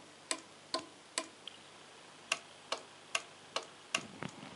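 Relays in 433 MHz remote-controlled mains sockets clicking as they switch on and off, about two sharp clicks a second, eight in all with a short pause after the third.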